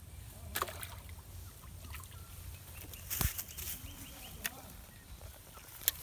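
A climbing perch pulled out of a pond on a rod and line, splashing and then flopping on the grassy bank: a few sharp slaps, the loudest a solid thud about three seconds in.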